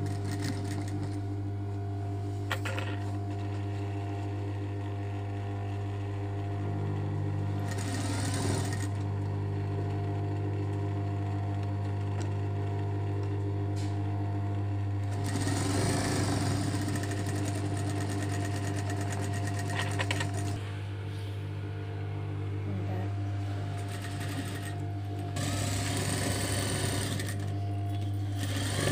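Industrial single-needle lockstitch sewing machine stitching through fabric in several runs, about a second in, in a longer run a little past the middle, and again near the end, over a steady low hum.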